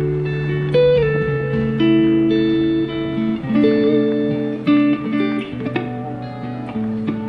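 Background guitar music: plucked notes changing every half second or so over a held bass line.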